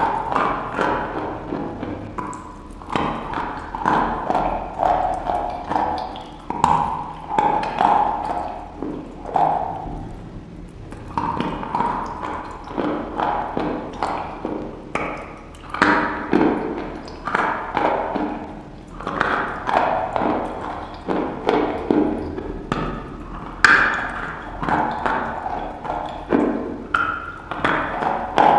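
Close-miked eating sounds: chewing and lip smacking on a soft, porous white food. It comes as an irregular run of wet clicks and crunches, with brief pauses between bites.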